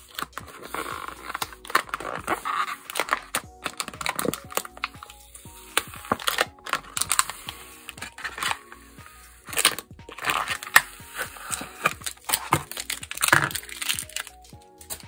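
A white protective sheet being peeled and pulled off a frosted plastic binder cover: irregular crinkling and crackling of thin plastic and paper handled with tweezers. Soft background music runs underneath.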